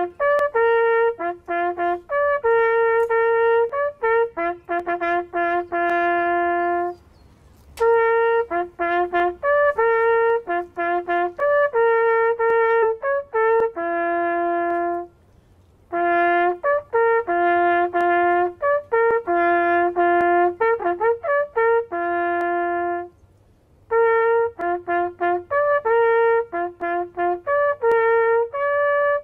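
Solo trumpet playing a slow melody in phrases, with three short pauses between them.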